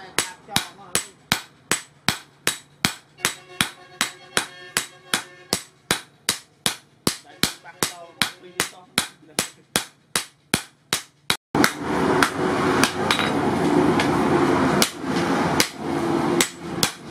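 Hand hammer striking a red-hot steel blade blank on a stake anvil in a steady rhythm of about three blows a second, drawing the blade thin. About two-thirds of the way in the sound cuts off abruptly, and a louder, dense rushing noise follows with only scattered strikes.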